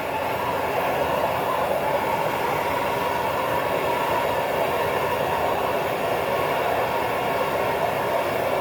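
Handheld gas torch flame with a steady rushing hiss, heating a stuck cylinder head bolt to free it.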